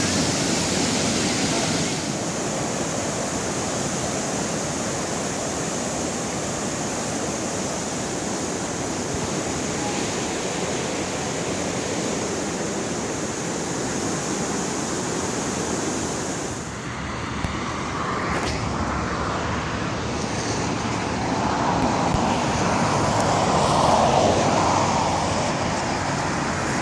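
Boulder Creek in flood, rushing steadily with a hissing, even noise. About two-thirds of the way through, the sound changes abruptly, losing its hiss and becoming duller, with a louder swell near the end.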